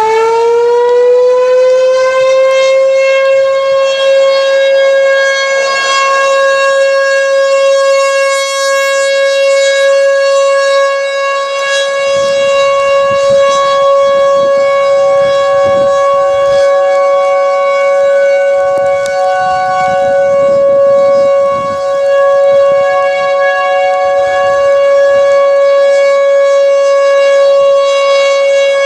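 American Signal Tempest T-128 rotating outdoor warning siren sounding its monthly test: it finishes winding up in the first second, then holds a loud, steady alert tone rich in overtones. Through the middle a second, fainter siren tone at a higher pitch sounds alongside.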